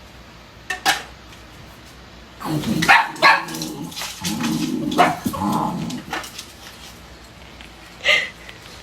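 A dog barking and vocalizing: a run of short barks and longer low calls, then one more bark near the end.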